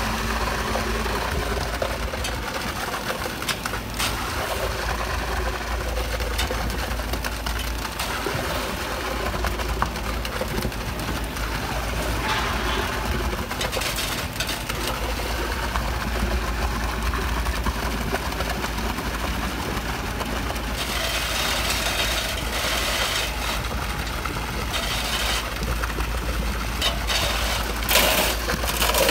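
Concrete mixer truck's engine running steadily while wet concrete pours from its chute into a footing form, with more hissing, spattering noise in the last third.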